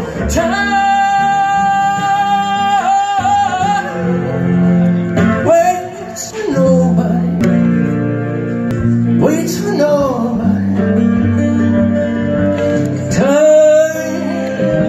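A man singing live over an electric guitar. Near the start he holds one long note for a couple of seconds, then sings phrases that slide up and down in pitch.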